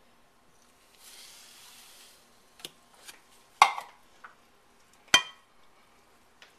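Granulated sugar pouring into a stainless steel saucepan with a soft hiss about a second in, then several sharp knocks against the pan, two of them loud and leaving the pan ringing, as sugar and cocoa are added and worked in with a wooden spoon.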